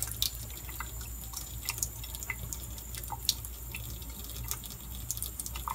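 Scattered small clicks and taps of a small test vial and dropper bottle being handled as pH test drops are added to a water sample, over a low steady hum.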